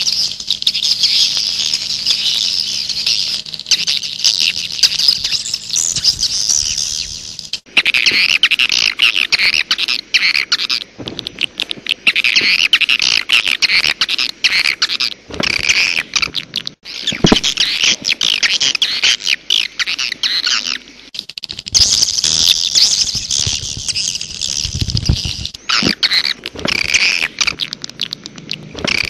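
Swiftlet lure-call recording: dense, high twittering chirps mixed with rapid clicking, the kind played to draw wild swiftlets to a nesting house. The calls break off abruptly and restart several times.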